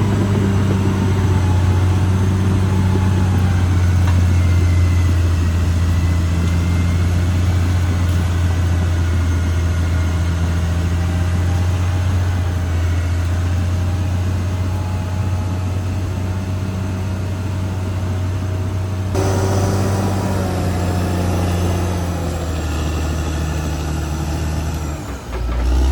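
Caterpillar D6R XL bulldozer's diesel engine running steadily with a deep, even drone. The sound changes suddenly about three-quarters of the way through and dips briefly near the end.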